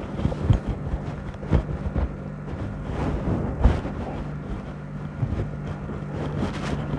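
Irregular soft thumps and rustles of a patient's body being handled during a chiropractic leg and spine manipulation, over a steady low hum.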